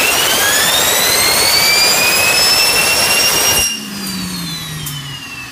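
Small jet turbine on a go-kart, run up on the spot: a loud rush with a high whine that climbs and then holds. About three and a half seconds in it drops back sharply and the whine falls away as the turbine spools down.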